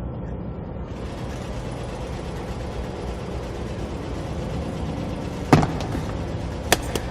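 Steady low rumble of background noise, with one sharp knock about five and a half seconds in and two shorter clicks near the end.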